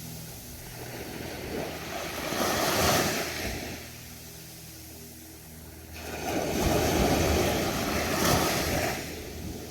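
Ocean waves breaking and washing on the shore, surging twice: once peaking about three seconds in, then again from about six to nine seconds. A steady low hum runs underneath.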